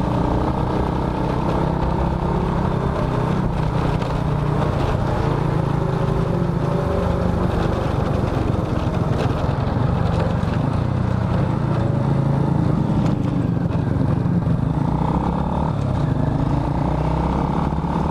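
2005 Honda Supra Fit's small single-cylinder four-stroke engine running steadily while the motorcycle is ridden along.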